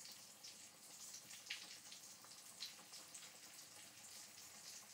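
Faint hiss of chicken pieces frying in a pan, with scattered crackling pops.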